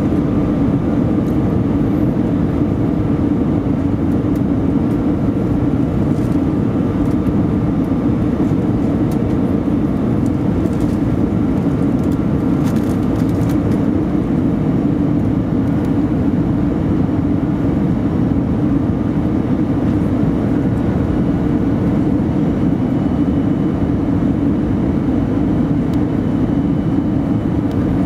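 Steady cabin noise inside an Airbus A320 on approach, heard from a window seat beside the wing engine: the jet engine's low hum and the rush of airflow over the fuselage, with a faint steady whine above it.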